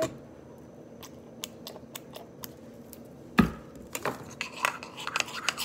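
A few faint small clicks, then a single loud thump against the tabletop about three and a half seconds in. Quick clicking and scraping follow as a spoon stirs the soap-and-vinegar slime mixture in a bowl.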